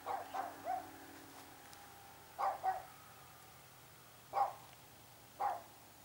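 A dog barking in short, irregular barks: three quick barks at the start, a pair about two and a half seconds in, then two single barks near the end.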